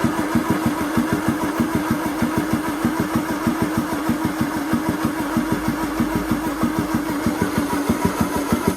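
Land Rover Series engine cranking on the starter motor without firing: a steady, even chug of about six compression pulses a second over the starter's whine, stopping abruptly near the end. The engine is blowing back out of the carburettor instead of sucking in, which the mechanics put down to over-tightened valves or a camshaft fitted wrong.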